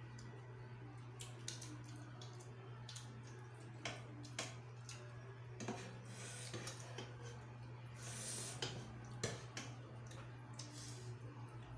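Spoons and forks clinking and scraping against ceramic bowls and plates as people eat, in scattered light clicks with a couple of longer scrapes. A steady low hum runs underneath.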